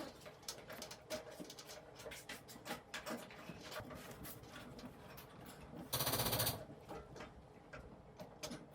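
Small clicks, knocks and handling noises of a dryer's metal drum and cabinet parts as the drum is lifted and set onto its replacement rear support wheels, with one louder rushing scrape lasting just over half a second about six seconds in.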